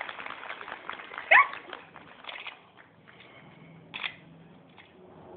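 Audience applause tapering off into scattered claps, with one short, loud call rising in pitch about a second in. Then the hall goes hushed apart from a few stray claps.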